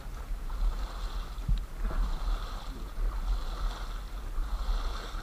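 Water lapping and splashing against the hull of a small drifting boat on a river, over a steady low rumble of wind on the microphone.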